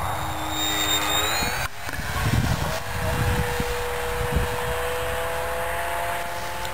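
Motor and propeller of a depron foam RC Extra 300 model plane whining in flight. Its pitch rises about a second and a half in as the motor speeds up, then holds steady, with wind rumbling on the microphone.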